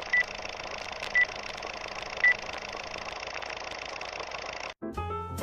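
A steady mechanical hum with three short, high beeps about a second apart, cut off abruptly near the end as piano-led jazz music begins.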